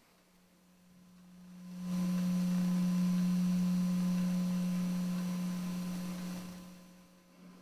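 A single steady low musical drone tone swells in over about two seconds, holds, then slowly fades away near the end.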